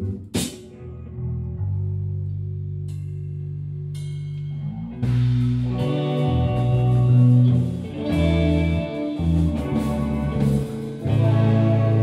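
Live rock band playing, with electric guitars and a drum kit. There is a sharp hit about half a second in, then a quieter passage of held low notes, and the full band comes back in louder about five seconds in.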